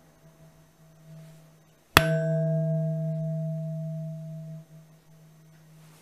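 Knife blade struck once, about two seconds in, ringing with a steady low metallic note and overtones that holds for nearly three seconds, then fades. The faint ring of an earlier strike is dying away before it.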